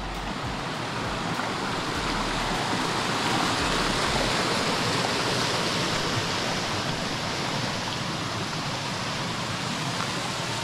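Shallow river rushing over rock rapids: a steady hiss of running water that grows a little louder over the first couple of seconds.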